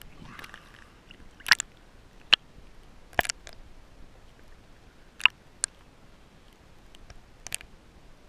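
Sound heard underwater: a faint hiss with about six sharp clicks and ticks at irregular intervals.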